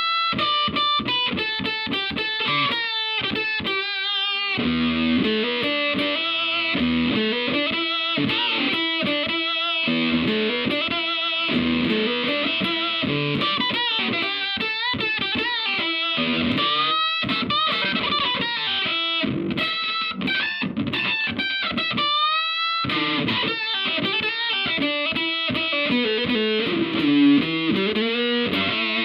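Electric guitar played through a Katanasound handmade effect pedal: fast lead runs with string bends and vibrato, with a brief pause about two-thirds of the way through.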